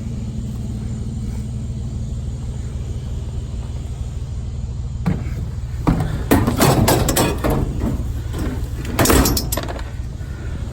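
A vehicle engine idling steadily, with a run of knocks and clattering from about five seconds in, loudest twice: around six to seven seconds and again near nine seconds, as of items being handled and set down.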